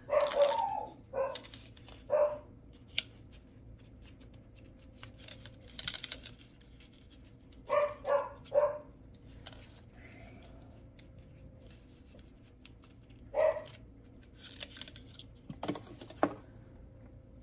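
A dog barking in short, separate barks: a few near the start, a quick run of three about eight seconds in, and another about thirteen seconds in. Light clicks and taps come between the barks.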